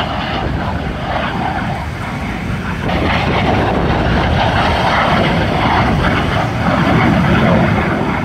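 Small single-engine jet aircraft flying past on a display run, a steady jet noise with no clear tone that grows louder about three seconds in and again near the end.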